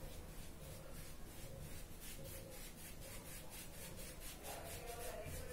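A hand rubbing primer into stretched cotton fabric, a soft scratchy swish repeated at about four strokes a second.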